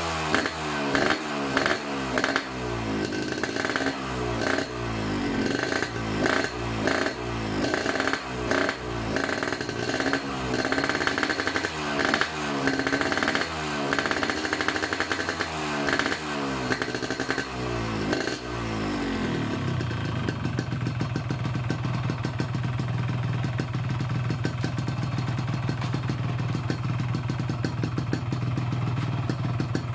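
Yamaha RX-King's two-stroke single-cylinder engine through an Altech C20 aftermarket exhaust, blipped up and down about once a second, then settling to a steady idle about two-thirds of the way through. The exhaust is set for everyday riding, neither 'dry' nor 'wet' in tone.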